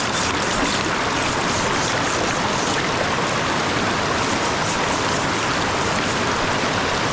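Steady rush of a river.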